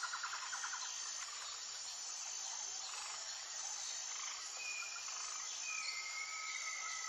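Animal ambience: a steady high insect chirring runs throughout. A rapid trill sounds in the first second, and long whistled calls come in the second half, one of them falling in pitch.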